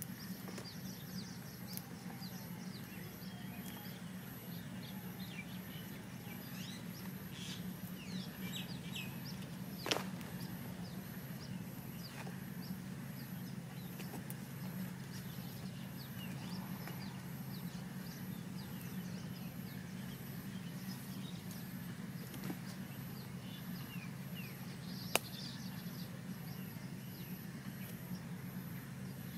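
Open-air ambience: small birds chirping here and there over a steady low hum, with a high insect call pulsing at an even beat. Two sharp knocks stand out, one about ten seconds in and one near the end.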